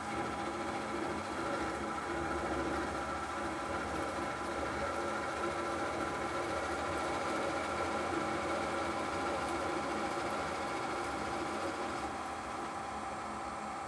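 ProtoTRAK SLX CNC lathe running with its spindle turning, the tool cutting along a metal bar on the first roughing pass. The spindle drive hums steadily, a little quieter near the end.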